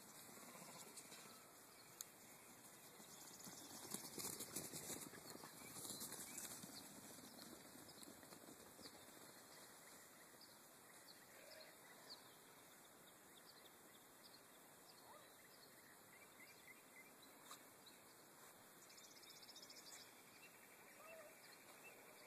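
Near silence: faint outdoor ambience with scattered faint high chirps and ticks, a little louder for a few seconds about four seconds in.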